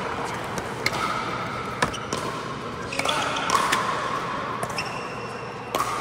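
Pickleball rally: paddles striking the hollow plastic ball with sharp pops, about seven in six seconds at an uneven pace, mixed with the ball bouncing on the hard court.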